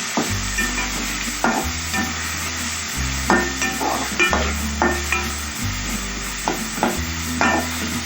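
Onions and tomato frying in oil in a pan, sizzling as a spatula stirs and scrapes them, with short strokes every half second or so. Background music runs underneath, its bass note changing about every second and a bit.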